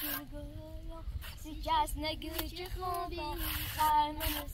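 A high voice singing a wavering, drawn-out melody in short phrases.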